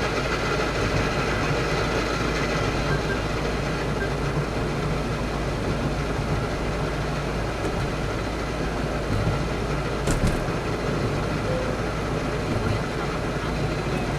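Steady car running noise: a low engine and road rumble under a broad hiss, at an even level, with a faint tick about ten seconds in.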